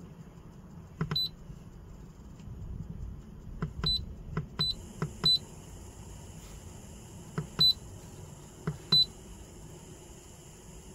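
Simrad AP44 autopilot controller being operated: six short high key beeps, each just after a click of the rotary knob or buttons. They come as a roll offset value is stepped in and confirmed, and the last two are the loudest.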